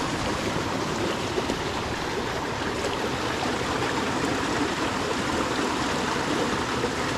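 Small mountain creek running over boulders: a steady, even rush of water.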